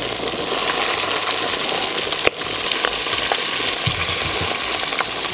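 Chicken pieces frying in hot oil and butter in a cast-iron kazan: a steady sizzle with scattered small pops, and one sharper click about two seconds in.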